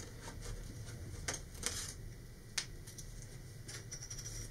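Faint clicks and rustling of a hobby knife snapping through the small tabs that hold laser-cut centering rings in a card sheet, with three sharp clicks standing out in the middle of the stretch.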